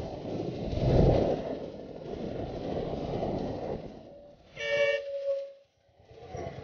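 Royal Enfield Continental GT motorcycle riding along a highway, with engine and wind noise on a helmet-mounted camera. About four and a half seconds in, a vehicle horn blares once for about a second. Near the end the sound drops out briefly and the engine comes back at low speed with an even pulse.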